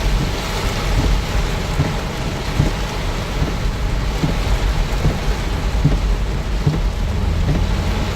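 Torrential rain drumming hard on a car's roof and windows, heard from inside the cabin: a dense, steady patter of countless drops over a low rumble.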